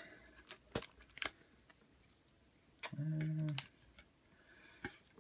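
Light clicks and taps from the tin being handled while its tight plastic shrink wrap is cut into. A short hummed vocal 'mm' comes about three seconds in.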